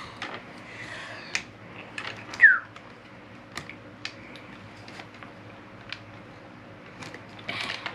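Scattered clicks and snaps of Lego Technic plastic pieces being handled and pushed together, with one short, high, falling squeak about two and a half seconds in.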